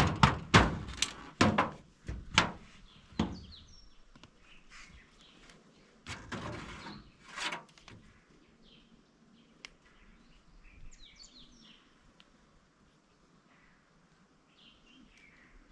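A quick run of loud knocks, about two a second, over the first three seconds, then a few scattered knocks and two short scraping rustles. Faint bird chirps come through later on.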